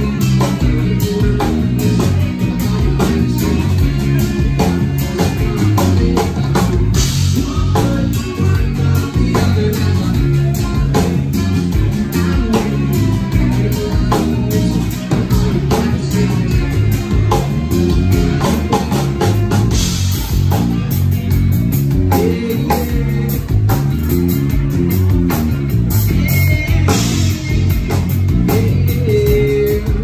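Live band music: electric guitar, bass guitar and drum kit playing together with a steady beat.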